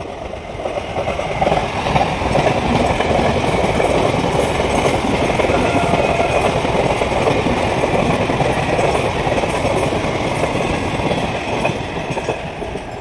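Mumbai Western Railway suburban electric local train passing close by at speed: a steady running noise of wheels on rails, with faint clicks over the rail joints. It builds over the first second or two and eases off near the end.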